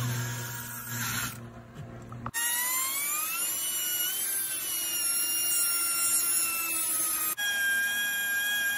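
Cordless drill boring through a fiberglass boat hull for about two seconds. Then a high-pitched rotary tool takes over, its whine rising in pitch and then holding steady as it grinds the hole wider, with a shop vacuum hose drawing off the dust.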